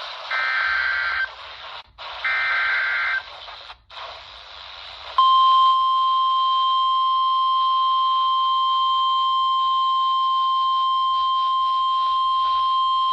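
NOAA Weather Radio emergency alert played through a RadioShack 12-254 weather radio over a static hiss from weak reception. Two short buzzy SAME digital header bursts of about a second each come first. About five seconds in, the steady 1050 Hz warning alarm tone starts and holds.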